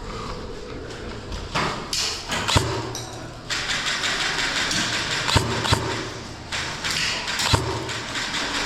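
Airsoft play: four or five sharp knocks and cracks, two of them close together, over a steady rustling hiss that grows louder a few seconds in.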